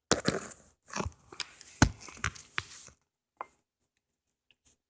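Irregular knocks, clicks and rustling from someone moving about and handling things, for about three seconds. Then a brief squeak and a few faint ticks.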